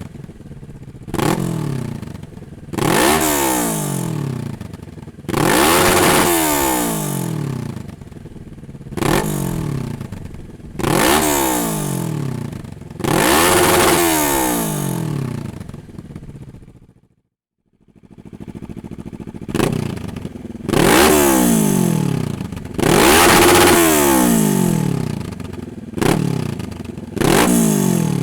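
Kawasaki ER-6n's 649 cc parallel-twin engine, breathing through a Dominator aftermarket exhaust, revved in short sharp throttle blips about every two seconds, each climbing quickly and falling back toward idle. About two-thirds of the way through it breaks off to silence for a moment, then the blipping starts again.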